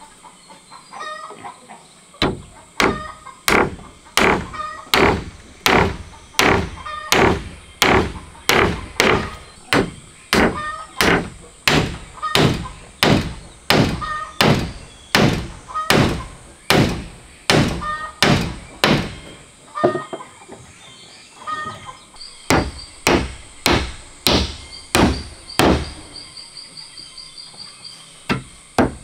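Claw hammer driving nails into wooden slats and planks, steady blows about two a second with a short pause about twenty seconds in.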